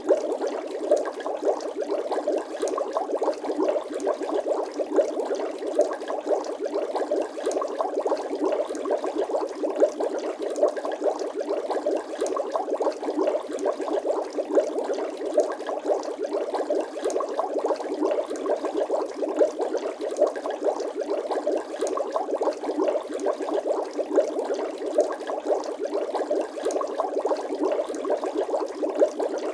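Bubble sound effect: steady, dense bubbling made of many small pops, like water bubbling continuously.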